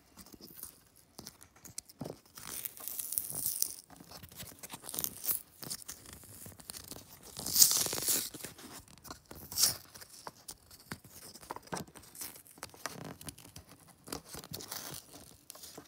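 A cut-open jersey relic trading card being torn and peeled apart by hand, its glued cardstock, paper and foam layers ripping and scraping in irregular bursts; the loudest rip comes about eight seconds in, with another sharp one near ten seconds.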